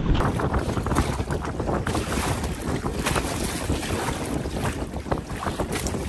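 Strong wind rushing over the microphone, with waves slapping and splashing against the sides of a skin-on-frame canoe and its outrigger float.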